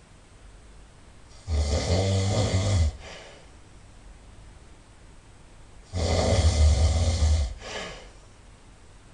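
A person snoring loudly. There are two long, low snores about four and a half seconds apart, each followed by a shorter, softer breath.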